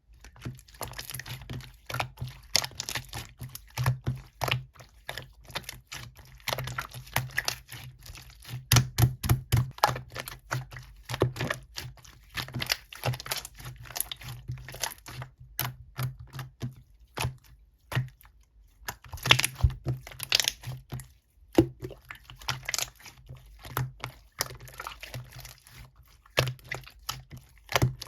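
Rapid, irregular clicking and tapping, like typing on a computer keyboard, over a faint steady hum.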